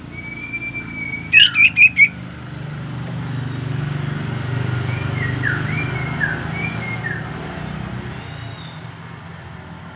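Sirtu songbird calling: a held whistle, then about a second in four loud sharp chirps in quick succession, and later a run of short down-slurred whistle notes. A low steady hum runs underneath.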